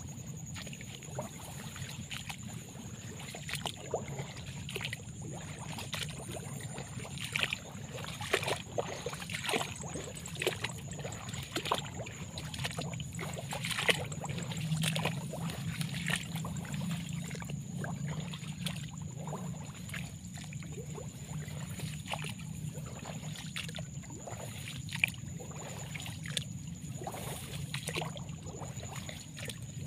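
Irregular rustling and splashing, like steps through wet paddy-field vegetation, over a steady low rumble and a thin, steady high-pitched tone.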